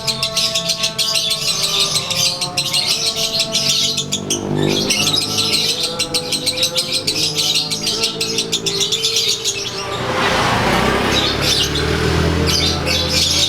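Lovebird ngekek: a long, fast, unbroken run of high chattering chirps, with a short break about four and a half seconds in. It turns rougher and noisier for the last few seconds.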